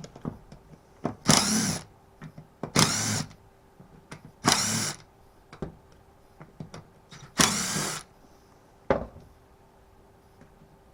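Power drill-driver run in four short bursts, undoing the screws that hold the cylinder of a Stihl FS36 strimmer, with small clicks and knocks of handling between the bursts.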